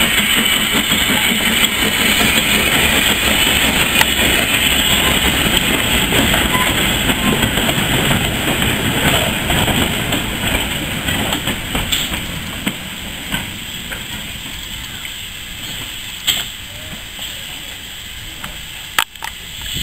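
A heritage train's goods wagons rolling past on the rails with wheel clatter, the noise fading away over the second half as the train moves off, with a few sharp knocks near the end.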